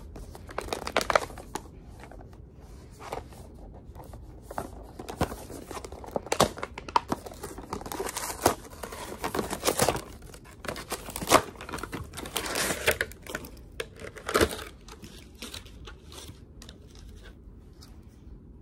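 Retail product packaging being opened by hand: irregular crinkling and tearing of plastic and cardboard, thinning out near the end.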